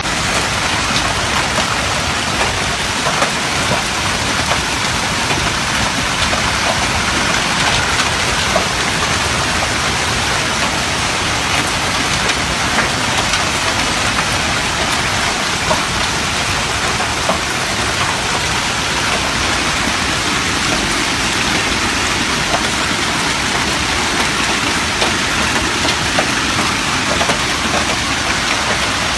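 A hailstorm with heavy rain falling in a dense, steady hiss, sprinkled with scattered sharp ticks of hailstones striking.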